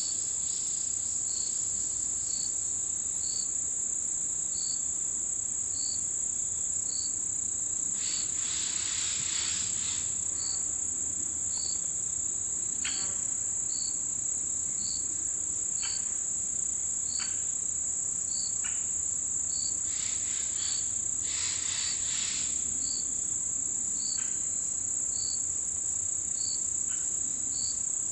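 Chorus of autumn insects singing: one keeps up a continuous high, even trill, while another chirps regularly about once a second. A few short, scattered calls break in twice with brief, louder noisy flurries.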